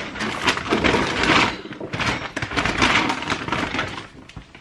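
Loud, crinkly rustling as a paper shop receipt and shopping bags are handled, dying down near the end.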